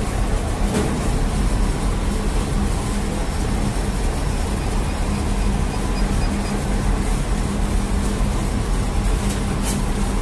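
Bakery dough machinery, a dough sheeter and a motor-driven rotating flour table, running: a steady mechanical hum and rumble, with a faint click just before the end.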